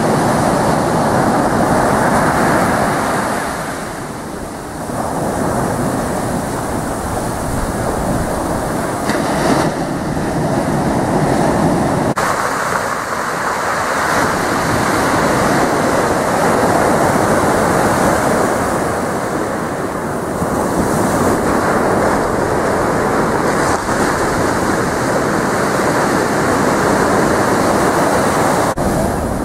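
Ocean surf breaking and washing up the beach: a continuous rush that swells and eases every several seconds.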